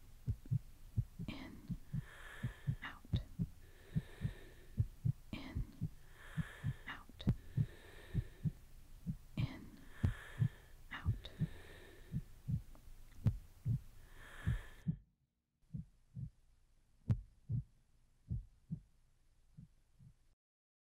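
Heartbeat sound effect: low, steady thumps in pairs, with a soft hiss recurring about every two seconds. About fifteen seconds in, the hiss stops and the heartbeat goes on slower and quieter, then cuts out shortly before the end.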